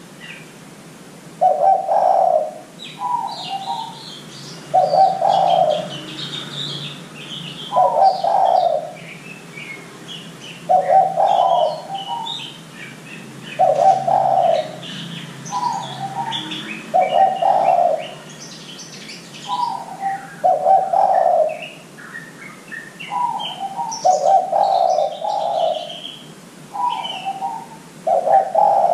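Spotted dove (derkuku) cooing, one phrase about every three seconds, some opening with a shorter, higher note before the main coo. Small birds chirp in the background.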